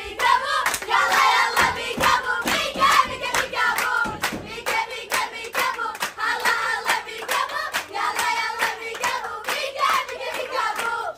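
Rhythmic hand clapping, about three to four claps a second, with voices singing over it.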